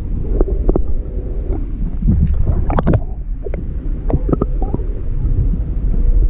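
Wind buffeting the microphone as a heavy low rumble, with a faint steady hum and scattered short knocks and clicks.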